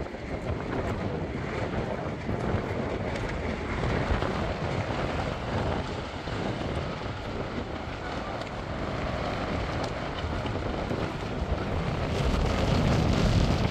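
Wind buffeting the microphone: a steady low rumbling roar that swells unevenly and grows stronger near the end.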